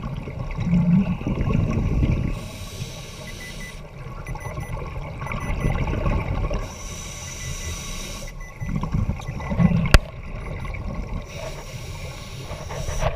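A scuba diver's breathing through a regulator heard underwater: hissing inhalations alternate with bubbling exhalations, about three breaths. A single sharp click sounds about ten seconds in.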